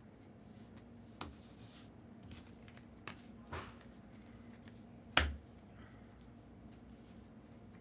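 Trading cards being handled: a few light clicks and one sharp snap about five seconds in, over a faint steady hum.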